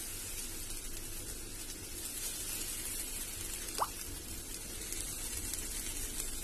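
Moong dal chilla batter sizzling steadily in a hot non-stick pan turned down to a low flame, while it is spread out with a spoon. A short, sharp rising squeak comes about four seconds in.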